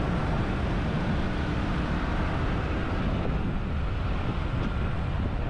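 Steady low rumble of road and engine noise from a moving vehicle, even throughout with no distinct events.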